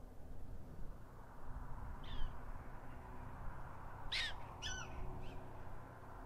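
Black-tailed prairie dog giving its jump-yip display call: short high yips, a faint one about two seconds in, then two louder ones close together about four seconds in, the second falling in pitch, and a last faint one.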